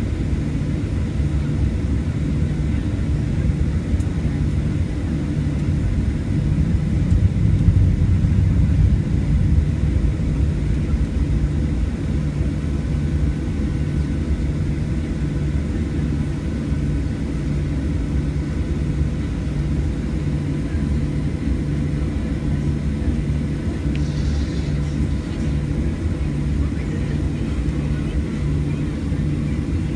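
Cabin noise of a Boeing 737 taxiing: a steady low rumble from its jet engines running at low power, with a low hum that throbs about once a second. The rumble swells briefly about a quarter of the way in, and there is a short rattle near the end.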